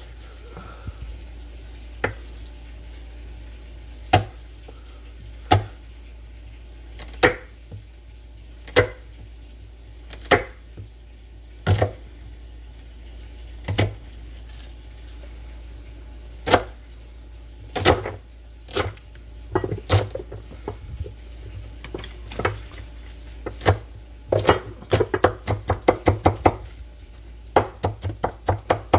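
Kitchen knife cutting an onion on a wooden cutting board: single knocks of the blade on the board every second or so, then rapid chopping, several strokes a second, near the end.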